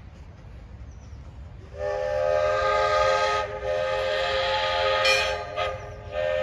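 Steam locomotive whistle, on the 4-6-2 Pacific-type locomotive #5, blowing a chord of several steady tones, starting about two seconds in. The blast dips briefly twice and is still sounding at the end, with a short burst of hiss partway through.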